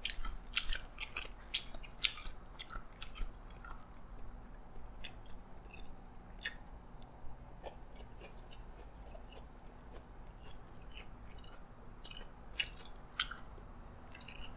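A person chewing a mouthful of yee sang salad, many small crisp crunches, thick in the first few seconds, sparse in the middle, and thick again near the end.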